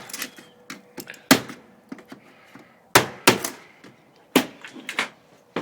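Hammer blows on the wood of a window frame being worked out of its opening: four loud, irregularly spaced knocks with lighter taps between.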